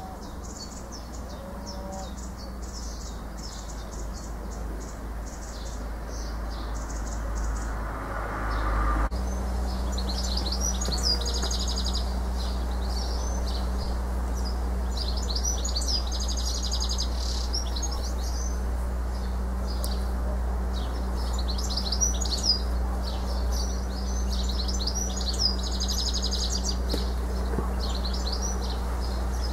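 House martins twittering: rapid, high dry chirps. They grow louder and come in clusters from about nine seconds in, over a steady low rumble.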